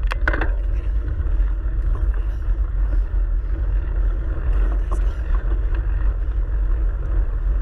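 Steady rumble of a bike rolling fast over a dirt and gravel trail, heavy with wind and handling noise on a handlebar-mounted camera's microphone, with a few sharp rattling clicks right at the start.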